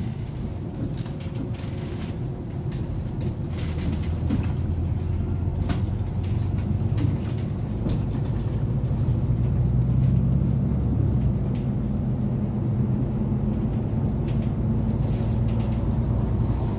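City bus running along the road, heard from inside the passenger cabin: a steady low rumble of engine and tyres that grows louder about four seconds in and again around ten seconds, with scattered small rattles and clicks from the cabin.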